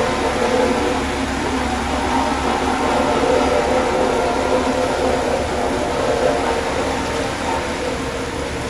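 Hamm 3410 single-drum roller's diesel engine running steadily as the machine drives, a constant hum over the even hiss of heavy rain.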